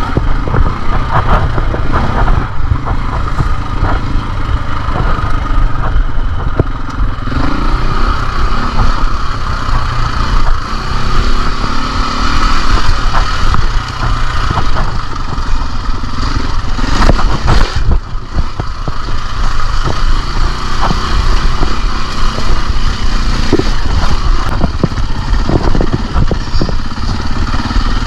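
KTM dirt bike running under changing throttle on a trail ride, with clattering knocks from the bike over rough ground.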